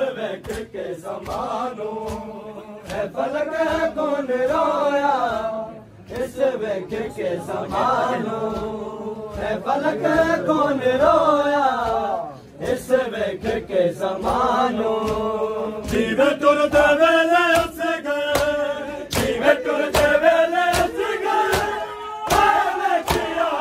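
A group of men chanting a Saraiki noha (Muharram lament) in phrases, with short breaks between lines. Sharp slaps of chest-beating (matam) keep the beat.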